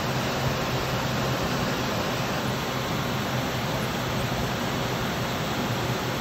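Steady rushing noise of grow-room ventilation fans, with a constant low hum underneath.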